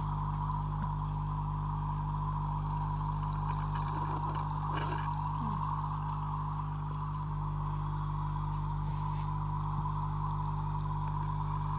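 Aerator air pump humming steadily while its air bubbles through water in a glass jar, with a constant bubbling fizz. There is a brief rustle about five seconds in.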